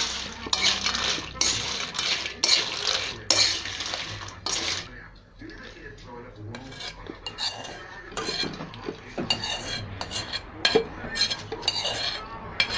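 Metal spoon scraping and clinking against a metal bowl and pan as fried murukku are stirred and tossed through hot sugar syrup to coat them. The strokes come in a quick irregular run, louder over the first few seconds, quieter for a moment around the middle, then pick up again.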